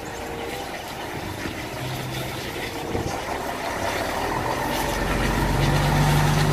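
Diesel engine of a concrete mixer truck with a pump boom running as the truck pulls out and drives off, getting louder through the second half.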